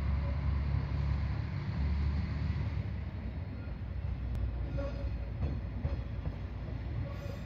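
Diesel railcar engine rumbling low and steady as a train comes into the station. It eases a little after about three seconds, when a few faint wheel clicks and brief squeals come in.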